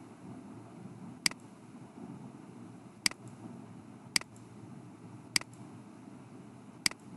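Computer mouse button clicking five times at uneven intervals, sharp single clicks with a short press-and-release pair on some, over a low steady room hum.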